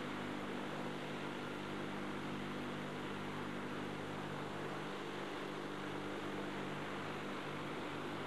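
Steady machinery drone with a low, even hum over a constant hiss, unchanging throughout, such as a ship's engines or ventilation running.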